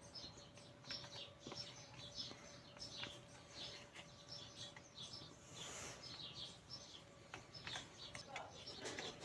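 Faint, repeated high chirping of small birds, with a few light clicks and a faint steady hum underneath.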